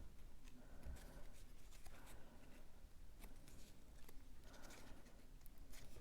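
Faint rustling and light taps of cardstock being handled and pressed down as a paper panel is glued into place.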